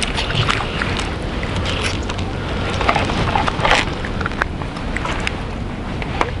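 A hooked crucian carp splashing and thrashing at the water's surface as it is played on a float rod, several sharp splashes, the loudest a little before the fish is swung out of the water.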